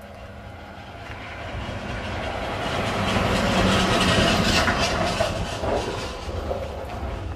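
A heavy truck pulling trailers drives past, swelling to its loudest about halfway through and then fading, with the trailers rattling and clattering as it passes.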